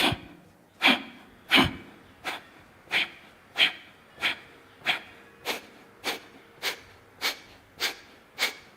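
Kapalabhati breathing: a rapid, even series of short, forceful exhalations puffed out through the nose by pumping the belly, about one and a half a second, with only quiet passive inhalations between them.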